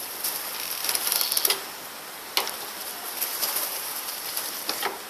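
Light clicks and rattles from a Suzuki TL1000R's front end as the handlebars are turned. There is a cluster of clicks in the first second and a half, a sharper single click about two and a half seconds in, and scattered ticks after that.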